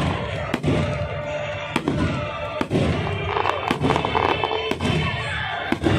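Fireworks display: aerial shells bursting with several sharp bangs, roughly one a second, over a continuous crackle and rumble, with music playing along.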